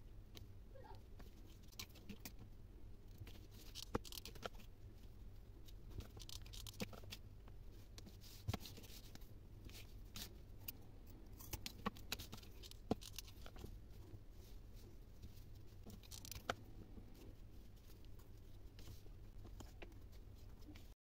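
Wooden popsicle sticks being handled, tapped down on a table and cut with scissors: scattered sharp clicks and small cracks over a faint low hum.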